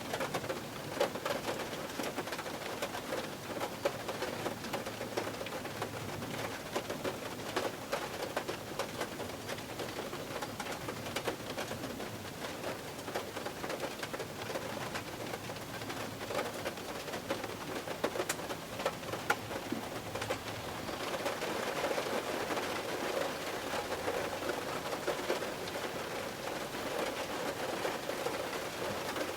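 Rain falling on a car roof: a steady hiss thick with the taps of single drops, growing a little heavier about two-thirds of the way through.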